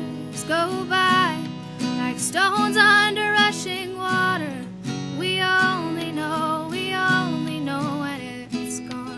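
A woman singing a slow, sliding melody over a strummed acoustic guitar.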